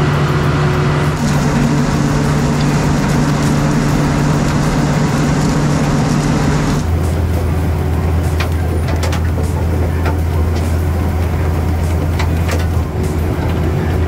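Lockwood potato harvester running behind its tractor: a steady, loud machinery drone. About seven seconds in the sound changes abruptly to a lower drone, with a few sharp knocks.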